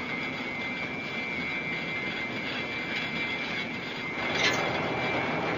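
Factory machinery running steadily, with a constant high whine over the noise and one sharp knock about four and a half seconds in.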